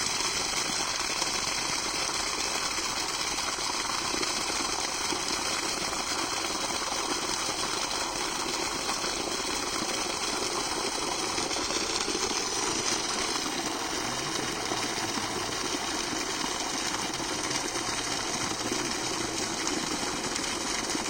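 Water gushing steadily from a borewell's outlet pipe, a continuous rushing flow.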